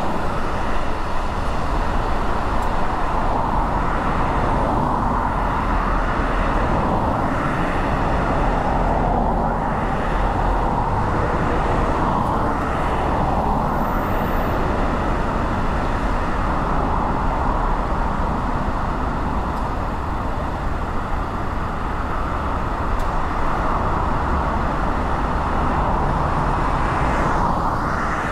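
Steady road noise of a moving car, an even rumble with the sound of surrounding traffic mixed in.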